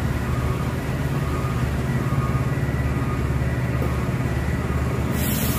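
Heavy truck's diesel engine running steadily at low revs, with a brief hiss near the end.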